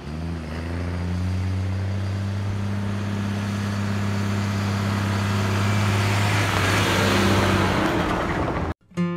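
GMC tandem-axle dump truck driving up a gravel road and passing close by: a steady engine drone with tyres crunching over gravel, growing louder and loudest as it goes past about seven seconds in, then cutting off suddenly near the end.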